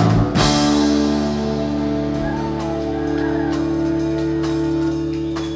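Live rock band, amplified through a club's sound system: a loud hit at the start, then a chord held and slowly fading, with light cymbal taps from about two seconds in.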